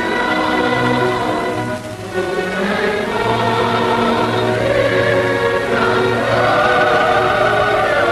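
Soundtrack music: a choir singing long held chords with orchestra.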